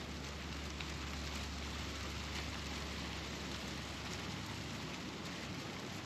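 Wind buffeting the microphone outdoors: a steady rushing noise with a low rumble, and a few faint ticks.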